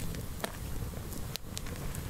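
Wood campfire crackling, with scattered sharp snaps and pops (two stand out, about half a second and a second and a half in) over a steady low rumble.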